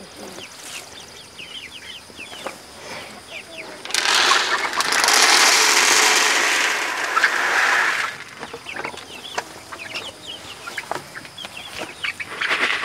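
Silkie chicks peeping throughout. From about four to eight seconds in, feed poured from a plastic bucket into a plastic chick feeder makes a loud, steady rushing rattle.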